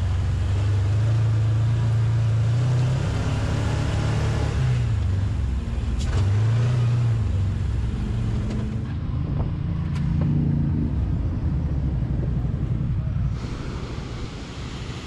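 Can-Am Commander 1000 side-by-side's V-twin engine running under way on a gravel trail, heard from the driver's seat, its pitch dipping and rising a few times, with two sharp clicks. About thirteen seconds in it gives way to the steady rush of a waterfall.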